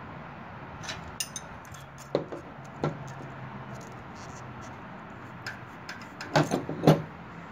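Hand tools (a wrench, ratchet socket and feeler gauge) clicking and clinking against the valve rocker arms of a small Honda engine while the valve lash is set and checked: a few scattered light taps, then a louder quick cluster of clinks near the end.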